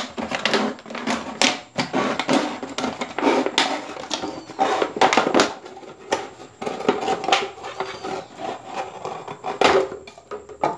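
Knife cutting through a plastic PET bottle: irregular crackling and crinkling of the thin plastic, with a louder crack near the end.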